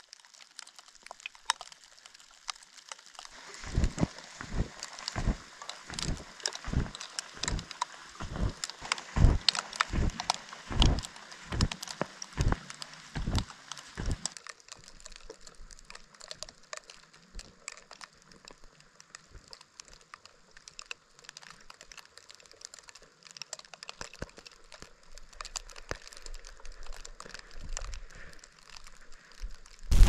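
Snowshoe footsteps crunching in deep snow. Through the first half there are steady dull thumps at about two steps a second, then the steps turn to fainter crunching.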